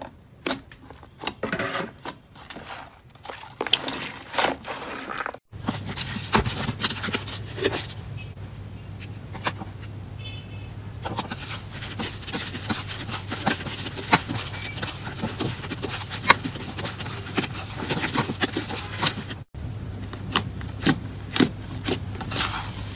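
Slime being pressed, stretched and poked by hand, giving rapid runs of sticky clicks and small pops. The sound changes abruptly about five seconds in and again near the end as one slime gives way to another, and a faint steady low hum lies under the later parts.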